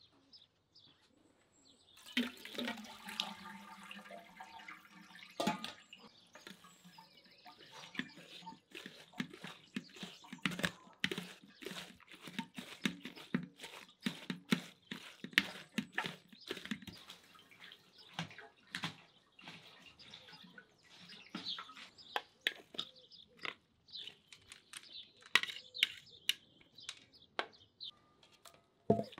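Liquid pouring for a few seconds, then a long run of irregular splashes, drips and small knocks.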